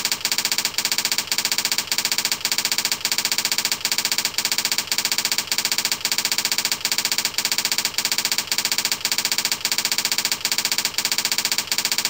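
Typewriter sound effect playing as slide text is typed out letter by letter: a rapid, even clatter of clicks that runs without pause.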